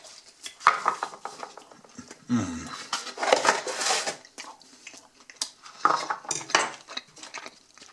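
Empty cardboard takeaway boxes being handled and folded shut on a wooden tabletop: several bursts of scraping and rustling with light knocks.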